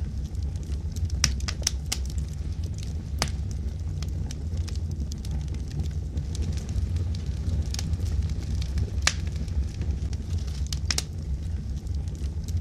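Wood logs burning in a fireplace: a steady low rumble of flames with scattered sharp crackles and pops from the logs, a dozen or so at irregular intervals.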